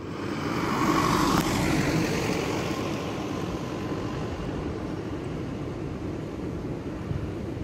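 A motor vehicle passing, loudest about a second in and then fading away, over a steady low rumble.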